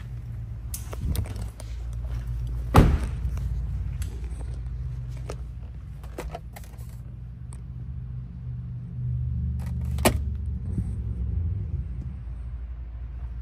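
Scattered clicks and knocks from hands handling a Cadillac Escalade's interior switches and trim, over a steady low rumble inside the cabin. The sharpest knocks come about three seconds in and again about ten seconds in.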